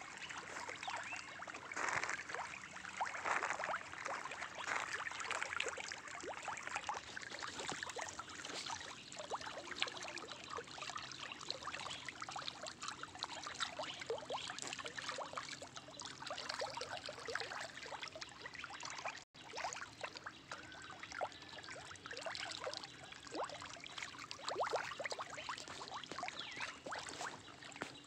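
Water on a lined fish pond splashing and trickling, a continuous patter of many small irregular splashes, with one brief dropout about two-thirds of the way through.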